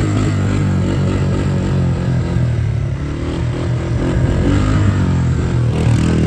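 Honda ATC 250SX three-wheeler's single-cylinder four-stroke engine running as the machine is ridden along, its note fairly steady with small rises and falls.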